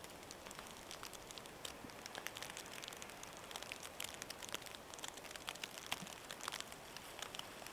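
Falling wet snow pattering on a nylon tarp and rain jacket: faint, irregular light ticks.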